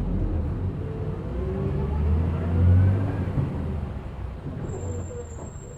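City bus engine accelerating, heard from inside the passenger cabin: a deep rumble with a rising whine, loudest about two and a half seconds in, then easing off. A thin high whistle comes in near the end.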